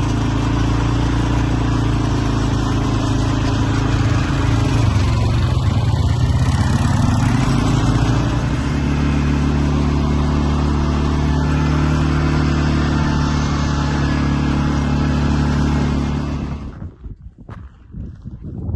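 ATV quad bike engine running steadily, its pitch shifting for a few seconds partway through, then dropping off abruptly near the end.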